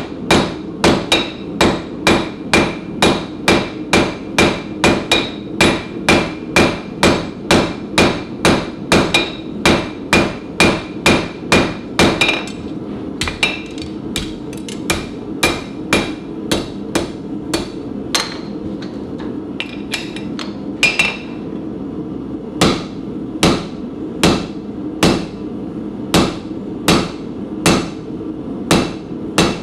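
Hand hammer striking red-hot stainless steel on an anvil: a steady run of blows, about two and a half a second, each with a bright metallic ring. About halfway through the blows become sparser and irregular, over a steady low hum.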